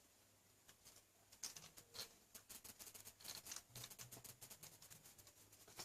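Faint, irregular clicks and small knocks of a plastic phone tripod being handled while its holder and joints are screwed tight.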